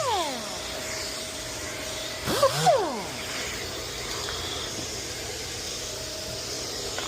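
Sanding tool spinning down as it is switched off, its pitch falling. About two seconds later it is briefly triggered, and its pitch rises and falls again over a steady hiss.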